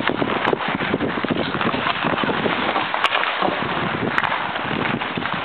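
Hockey skates scraping across outdoor ice and sticks clicking on the puck and ice, heard as a steady rough hiss with many small clicks and a few sharper knocks.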